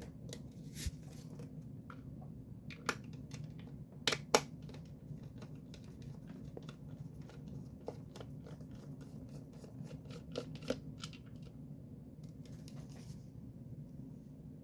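Phillips screwdriver working screws out of a plastic speaker housing: irregular scratchy clicks and scrapes, with two louder clicks about four seconds in, over a faint steady low hum.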